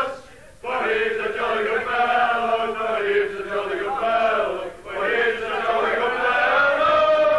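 A group of people singing together in unison, two long phrases of drawn-out notes with a brief break between them.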